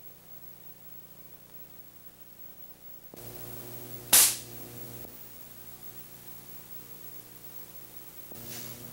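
A single sharp crack from a high-voltage spark source firing in an acoustic scale model, about four seconds in: the impulse used to measure the model's reflections. A steady electrical hum starts just before it.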